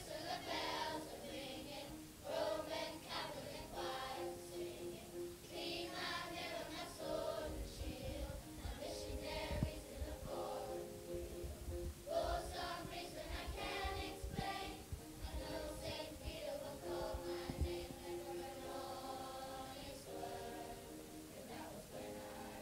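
A group of children singing together as a choir, in phrases with held notes and short breaks between them.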